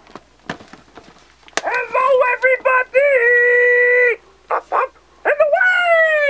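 Flying Super Grover 2.0 electronic plush doll playing Grover's high-pitched cartoon voice through its speaker: short exclamations ending in a long held note, then a falling glide near the end. A few clicks of the toy being handled come first.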